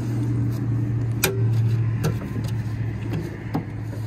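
An engine idles steadily with a low hum throughout. Over it come several sharp clicks and taps of fingers working the hood latch under the front edge of a Dodge pickup's hood.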